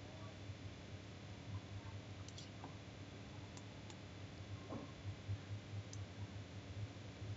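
Computer mouse buttons clicking a handful of times, sharp and faint, over a steady low hum and hiss.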